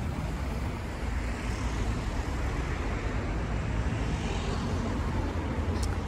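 Steady city road traffic: cars running past on the street, heard as an even wash of tyre and engine noise with a low rumble.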